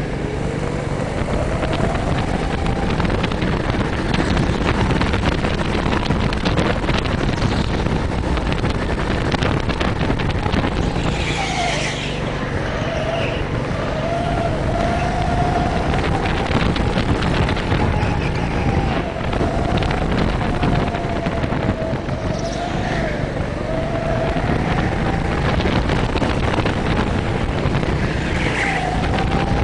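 Go-kart engine running hard as heard from the driver's seat, its pitch wavering up and down with the throttle through the corners, over a steady rush of noise. Brief high tyre squeals come about twelve seconds in and again near the end.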